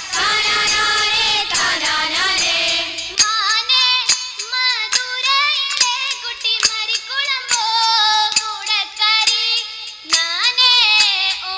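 A group of girls singing a song together through microphones, keeping time with hand claps about twice a second.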